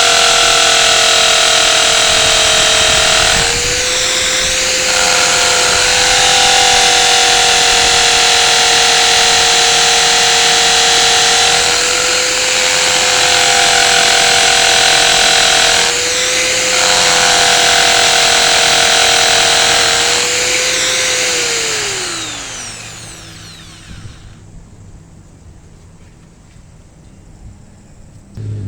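Electric drill motor running steadily at speed while boring a hole for a Tapcon screw, with a few brief changes in load. About 21 s in it is released and its whine falls in pitch as it spins down.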